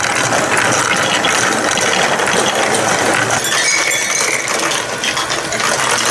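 Battery-driven spiral-screw ball lift of a plastic block marble run running, with a steady, dense clatter of gear motor and plastic balls rattling inside the clear tube.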